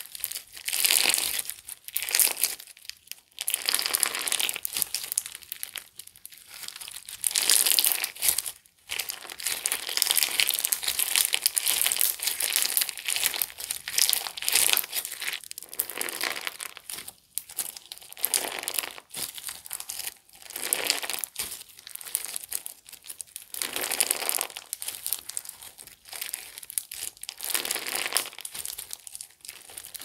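Clear slime packed with large iridescent flakes being kneaded and squeezed by hand, giving a dense crinkling crackle. The crackling comes in repeated squeezes, each a second or more long, with short pauses between.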